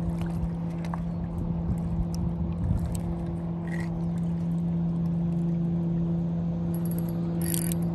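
Boat motor running with a steady low hum, over a low rumble of water and wind, with a short higher-pitched click near the end.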